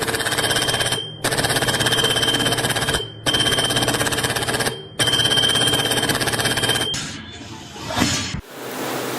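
A power tool or machine run in four bursts of about two seconds each, switched on and off sharply, each with a fast rattle under a steady high whine.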